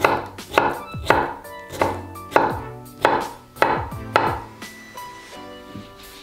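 Kitchen knife chopping boiled bamboo shoot on a wooden cutting board: eight crisp knife strikes about two a second, stopping a little past the middle.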